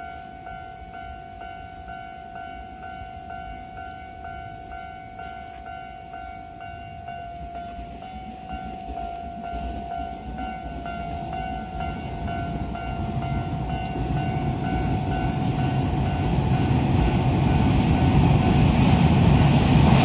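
Japanese railway level-crossing alarm ringing its repeated electronic 'kan-kan' tone, about two strikes a second. From about halfway through, an approaching Keisei 3100 series electric train rumbles in, growing steadily louder to the end.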